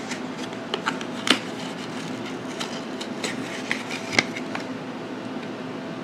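Cardboard packaging being opened and handled: scattered light clicks and scrapes that stop about four and a half seconds in, over a steady low hum.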